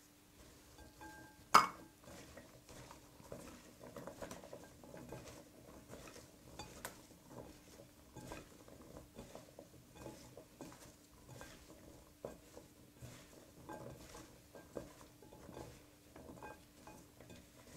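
Raw potato sticks being tossed by hand with corn flour in a glass bowl: soft, irregular rustling and light clicks of the sticks against the glass, with one sharp knock about a second and a half in.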